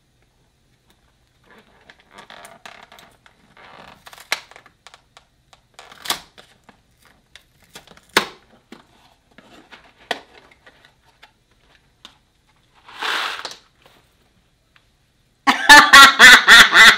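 Dry macaroni poured slowly into a bowl: faint rustling with a few sharp clicks of pasta pieces landing. Near the end, a loud, rapidly pulsing electronic alarm from the phone game, the sign that the noise limit was exceeded and the round was lost.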